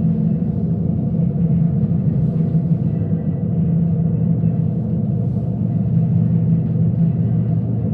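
Snow crawler's engine running at a steady pace, a loud, unbroken low drone with a constant hum.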